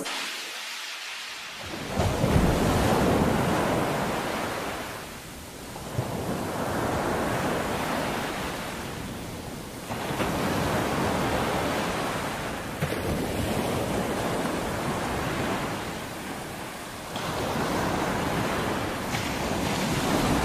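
Ocean surf washing onto a shore, swelling and easing back in slow waves, with peaks about 2, 6, 10 and 17 seconds in.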